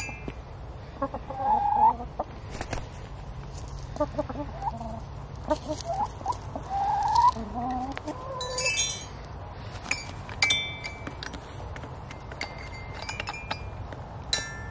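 Hens clucking, with beak pecks on a toy xylophone's bars. Several pecks ring out as short single notes, mostly in the second half.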